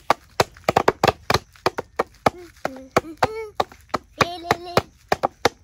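Small hand drum beaten by a child in quick, uneven strokes, with the child singing two short high phrases over it, one in the middle and one near the end.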